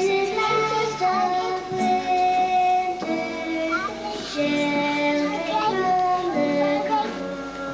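A group of children singing a song together in held notes.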